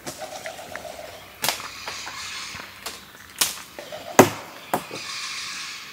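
Forest birds calling: a buzzy, pulsing call in the first second and again briefly later, with several sharp clicks spaced through the middle and a soft hiss near the end.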